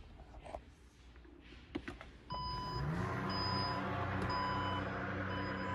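Porsche Panamera power tailgate moving: its electric motor starts with a brief rise in pitch a little over two seconds in and hums steadily, while a warning beep repeats over it.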